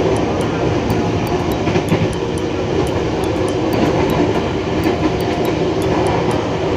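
KRL electric commuter train running along the line: a steady rumble of wheels on rails mixed with traction-motor noise, with a few light clicks.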